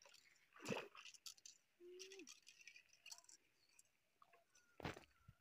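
Quiet outdoor ambience with a few sharp clicks and knocks, the loudest about five seconds in, and faint short calls in the background.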